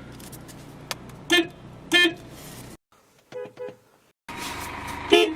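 Car horns honking in a string of separate short clips: a short toot about a second in and another at two seconds, then a fainter, higher-pitched double toot just past three seconds, and a louder pair of toots near the end.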